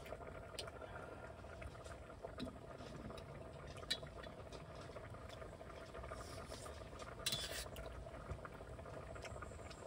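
A pot of perilla-seed sujebi soup kept simmering on the burner, a steady faint bubbling hiss. A few small clicks and a short clatter about seven seconds in.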